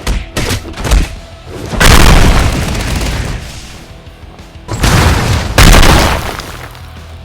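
Heavy booms over music: a few short thuds in the first second, then two big booms, one about two seconds in and one around five to six seconds, each rumbling away over a second or so.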